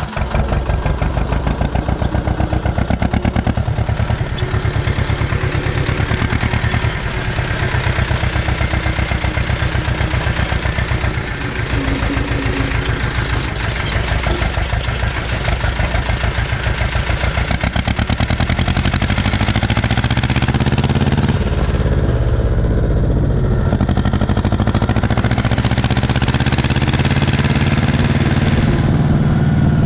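Ursus C-330M tractor's two-cylinder diesel engine running through a new stainless-steel exhaust muffler, with a rapid, even firing beat. Its note changes about two-thirds of the way through and then runs steadier and a little louder.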